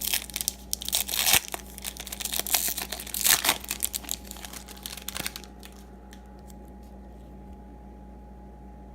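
A baseball card pack's wrapper being torn open and crinkled: a run of crackles and rips that stops about five seconds in, leaving a low steady hum.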